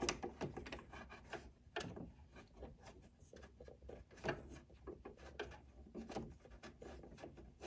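Small screw-in sewing machine light bulb being turned into its socket by hand: faint, irregular rubbing and scraping with light clicks of the metal base and fingers against the plastic housing.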